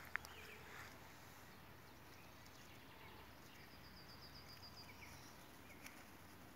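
Near silence: quiet outdoor ambience. There is one sharp click just after the start, and a faint, high, rapid chirping trill about four seconds in.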